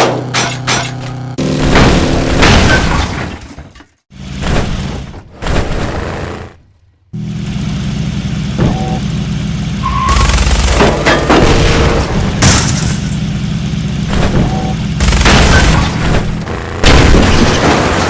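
Loud background music with crash and boom sound effects mixed in, cutting out sharply twice in the first half.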